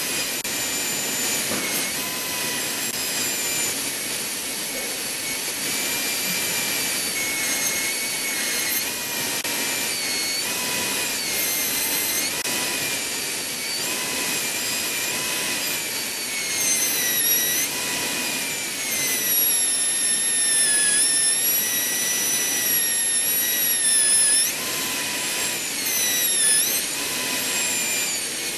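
High-speed air-turbine dental handpiece running continuously with its water spray as the bur cuts a premolar abutment on a typodont tooth: a high whine over a steady hiss. The pitch sags and recovers again and again as the bur bears on the tooth, most markedly in the second half.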